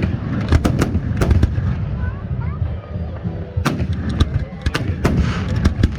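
Aerial fireworks shells bursting in rapid volleys of sharp bangs, with a short lull around two to three seconds in before another dense run of bursts.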